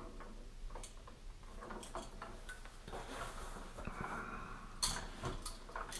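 Scattered light clicks and handling noises of a stripped electrical wire being bent around into a hook, with a sharper click just before five seconds in.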